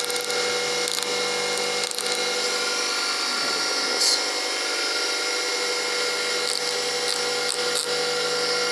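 Bench grinder running steadily while its wheel grinds metal off the edge of a steel connecting rod's big end, a steady motor whine under a harsh grinding hiss with a few brief scrapes; material is being removed to bring the rod's weight down for engine balancing.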